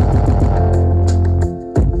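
Loud dance music with heavy, sustained bass and drum hits played through towering stacks of disco sound-system speaker cabinets driven by a Live FET 25000 power amplifier. The bass cuts out briefly near the end, then returns with a hit.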